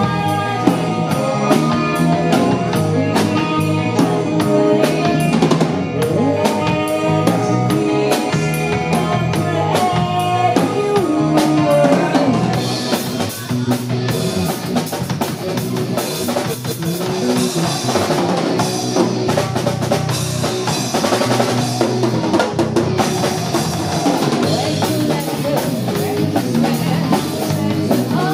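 Live band playing: a driving drum-kit beat under a five-string electric bass line. About twelve seconds in, the sharp, regular drum hits thin out and a brighter wash of cymbals takes over.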